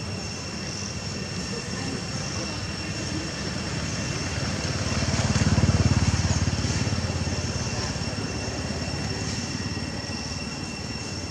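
Low rumble of a passing vehicle, swelling to its loudest about six seconds in and then fading, over a steady high-pitched whine.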